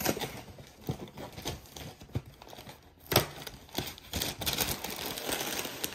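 Plastic liner bag inside a cereal box crinkling and tearing as it is pulled open by hand, with a sharper crackle about three seconds in.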